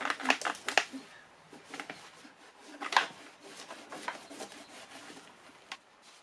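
A microfiber towel rubbing and scrubbing by hand over the painted metal and wiring harness of a car's engine bay, in irregular strokes with occasional light knocks as the harness and its plastic connectors are jostled. The loudest scrub comes about three seconds in.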